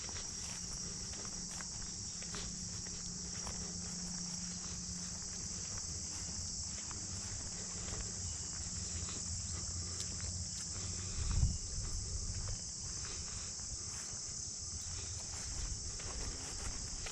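Steady high-pitched insect chorus, like crickets, running without a break, with the hiker's footsteps on the trail. There is a brief low thump about two-thirds of the way through.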